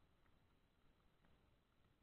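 Near silence: faint low background noise with a couple of very faint ticks.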